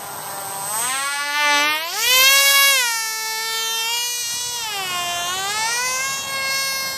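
Homemade foam RC plane's small electric motor and propeller whining in flight, the pitch climbing about a second in, dipping around the middle and rising again near the end as the throttle changes.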